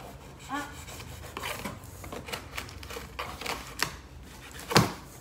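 Cardboard shipping box and its packaging handled: irregular rustling, scraping and small knocks as hands rummage through the contents, with one sharper knock a little before the end.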